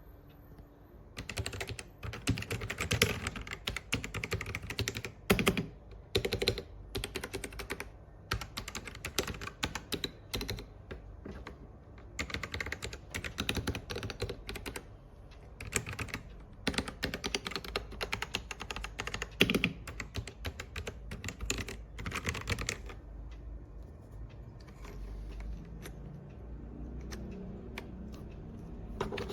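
Typing on an Ajazz AK992 gasket-mount mechanical keyboard with red linear switches: a fast, uneven run of key clacks with bursts of quicker strokes. The typing stops about three-quarters of the way through.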